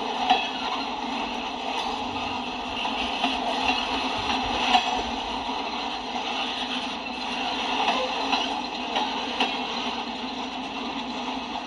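Freight cars (covered hoppers and tank cars) of a manifest train rolling past on the track: a steady rumble of wheels on rail, with scattered sharp clicks and knocks.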